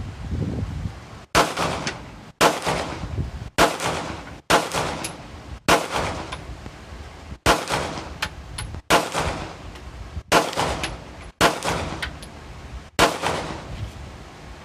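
A string of ten single gunshots fired at an unhurried pace, roughly one every second or so, each with a short echo tail.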